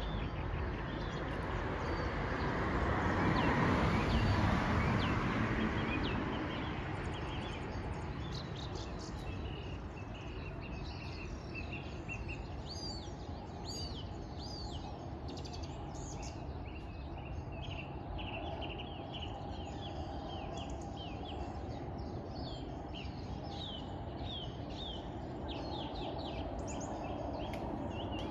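Many small birds chirping, with short quick calls that slide in pitch. In the first few seconds a passing car's noise rises and fades.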